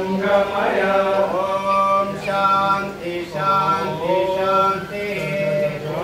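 A group of voices singing a prayer in unison, in long held notes that rise and fall in phrases of about a second, over a steady low drone.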